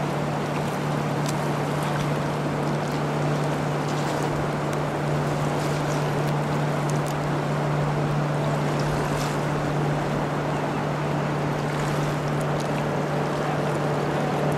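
Fast river current rushing steadily around waders, with a constant low hum underneath.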